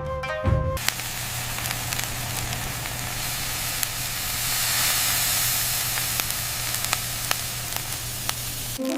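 Food sizzling: a steady hiss with scattered small crackles over a low steady hum. Plucked-string music stops just under a second in and comes back at the very end.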